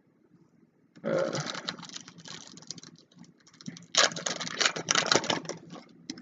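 Foil Yu-Gi-Oh booster pack wrapper being crinkled and torn open by hand, in two stretches of rapid crackling, the second louder, about four seconds in.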